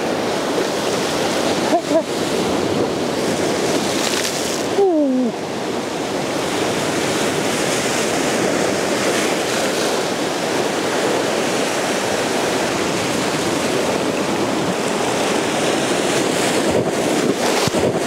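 Ocean surf breaking against and washing over rocks: a continuous rush of white water. About five seconds in, a short falling tone cuts across it.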